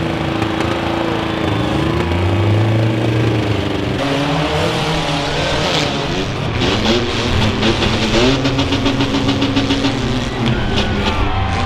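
Demolition derby car engines running and revving, their pitch rising and falling, with a rapid run of sharp clatter from about halfway through.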